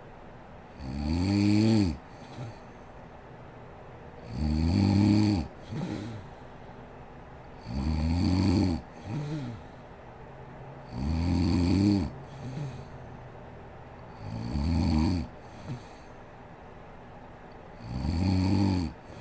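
A woman snoring in her sleep: six long snores about every three seconds, each a rough pitched drone that rises and then falls, with a short softer sound just after each one.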